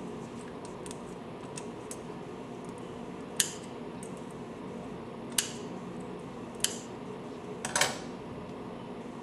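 Small wire cutters snipping off the excess metal braid of a coax (BNC) cable: a handful of sharp, separate clicks a second or two apart, with two close together near the end, over a steady room hum.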